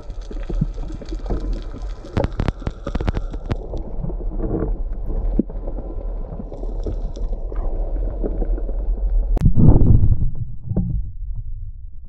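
Underwater rumble and gurgling picked up through a diving camera, with scattered small clicks. About nine seconds in comes a sharp crack, then a loud low rush of water and bubbles lasting about a second: a speargun shot.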